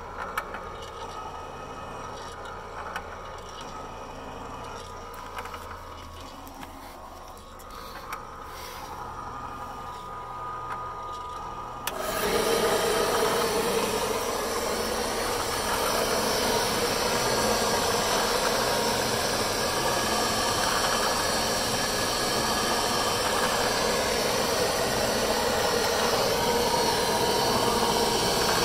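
Patterson-Kelley V-blender's electric motor and belt drive running steadily. About twelve seconds in, the sound abruptly gets louder and stays level.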